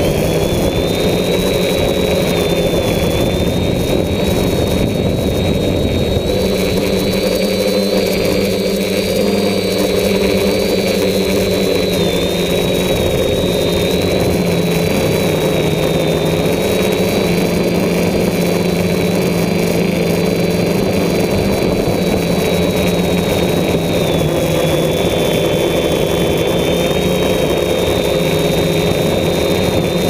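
DJI F550 hexacopter's six brushless motors and propellers running in flight, heard close from the onboard camera: a steady high whine with a lower hum beneath, its pitch dipping and recovering slightly a few times as the motors adjust their speed.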